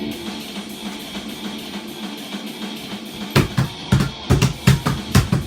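A music beat. For about three seconds there is only a faint backing with light ticking, then a drum kit beat comes in, with heavy kick and snare hits about three to four times a second.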